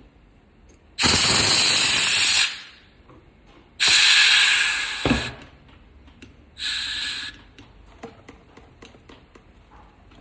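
Compressed air hissing in three bursts: about a second and a half, then another second and a half that fades out, then a shorter half-second one, each switched on sharply.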